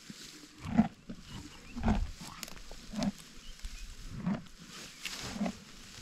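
Black rhinoceros feeding close by, plucking and chewing grass with a short low sound about once a second.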